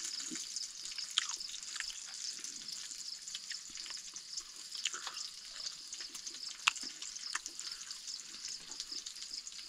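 Wet, scattered clicks of chewing and lip-smacking close to the microphone as someone eats grilled pork, over a steady faint high hiss.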